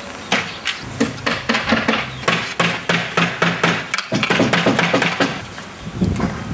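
A hammer striking repeatedly in quick succession, several blows a second, as roof slates are nailed on; the blows break off for a moment about four seconds in.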